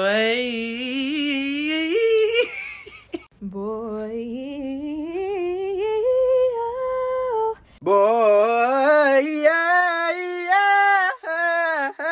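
Unaccompanied voices singing vocal riffs, three singers one after another: each a quick, wavering run that climbs in pitch, the runs broken by short gaps about three and eight seconds in.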